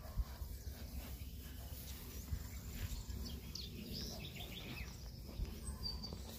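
Faint farmyard ambience: a low, even rumble with a few brief, high-pitched animal calls scattered through the middle.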